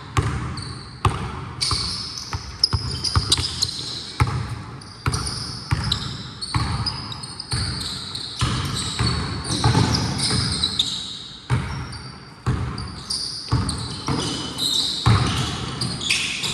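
Basketball bouncing repeatedly on a gym floor during play, in irregular thuds, mixed with the high squeaks of sneakers on the court.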